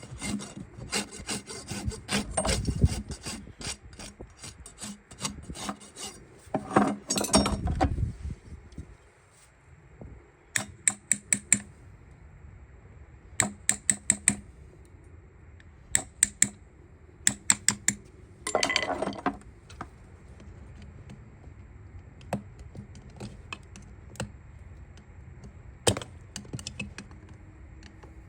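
Farrier's rasp filing a horse's hoof: quick rasping strokes for about the first eight seconds, then short, scattered groups of strokes and scrapes.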